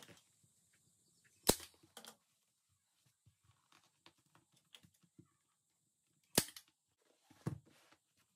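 A staple gun fires twice, about five seconds apart, driving staples through leather into a chair seat. Softer knocks and leather rustling come between the shots.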